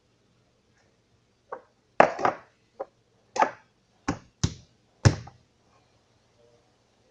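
A quick series of about seven sharp knocks and taps as cups are set down and moved about on a tabletop. The loudest come about two seconds in and near the end of the run, about five seconds in.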